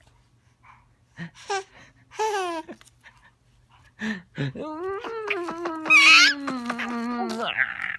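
Baby laughing and babbling: two short squealing coos in the first three seconds, then a long laugh from about four seconds in, broken into quick rhythmic pulses, with a high squeal partway through and the pitch sinking toward the end.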